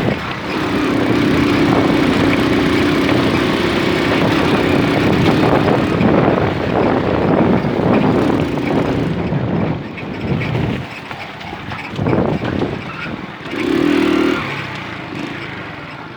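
Small moped engine running under throttle, holding a steady note for several seconds. Its note then wavers and drops off, with two short throttle blips late on, before falling back toward idle.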